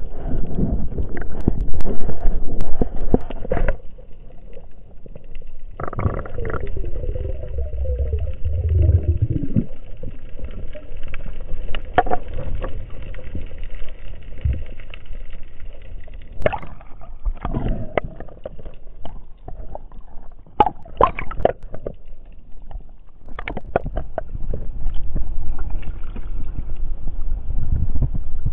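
Water rushing and gurgling against an underwater camera housing as a spearfisher swims, loudest in the first few seconds, with scattered knocks and clicks.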